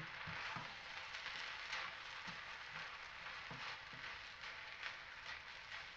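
Chicken fried rice sizzling faintly in a pan as it is stirred, with a light knock of the stirring utensil against the pan every second or so.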